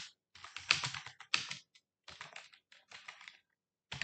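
Typing on a computer keyboard: keystrokes clicking in quick runs with short pauses between them, as a sentence is typed out.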